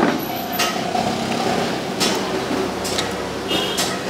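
Sharp clinks and knocks of dishes and utensils, four of them about a second apart, over a steady background din.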